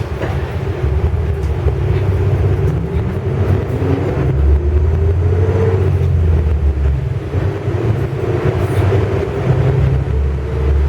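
Isuzu U-LV324K city bus engine heard from inside the cabin, pulling away under load: a deep rumble whose pitch climbs steadily, falls back, then climbs again.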